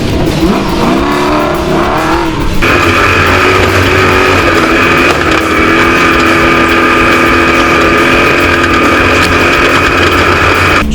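Off-road race truck engine revving up and down, then held at steady high revs from about two and a half seconds in.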